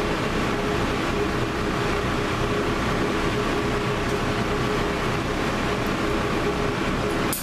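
Steady drone of a running vehicle heard from inside it, with a constant hum running underneath.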